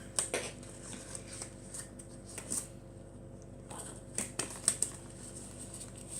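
Faint rustling and small crinkling clicks of disposable plastic gloves being shaken and worked onto the hands, with a few sharper snaps in the middle.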